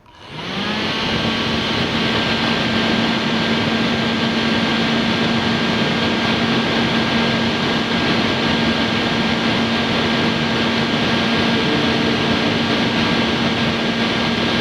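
Fan of a miniature portable air conditioner switching on and spinning up over about the first second, then running steadily: an airy rush with a steady hum.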